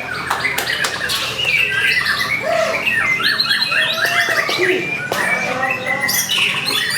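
White-rumped shama singing a fast, varied song of rapid chirps, whistles and harsh rattling notes, the kind of full, energetic song used as a lure to provoke a caged shama into answering.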